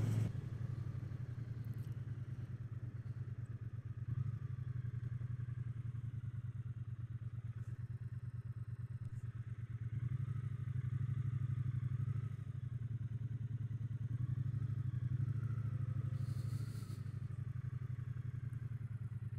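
Triumph Bonneville T120's parallel-twin engine running at low road speed on light throttle, with a steady pulsing exhaust beat. The note swells a little twice, about halfway through and again a few seconds later.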